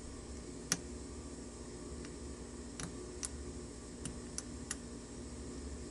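Faint, scattered metallic ticks, about six in all and mostly in the second half, from a lock pick working the pin stack of an American 700 padlock under light tension.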